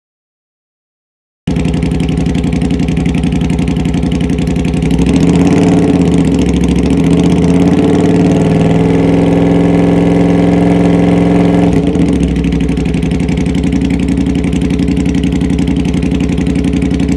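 Suzuki Intruder Classic 400's V-twin engine running through a Kentec low-rider muffler, cutting in after a second and a half of silence. It idles, rises to a higher, held engine speed about five seconds in, and drops back to idle around twelve seconds.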